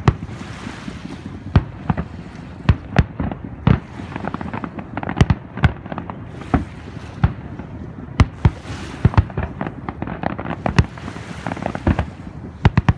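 Fireworks display: aerial shells bursting in a rapid, irregular series of sharp bangs, about one or two a second.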